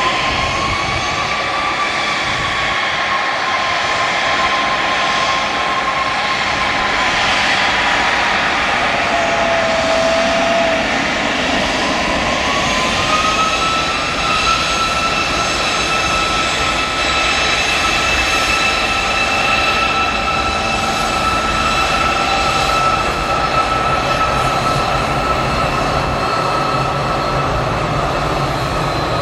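Bombardier CRJ1000 regional jet taxiing on its two rear-mounted GE CF34 turbofans: a steady, loud rushing noise with a high engine whine on top, whose pitch wavers and rises about twelve seconds in.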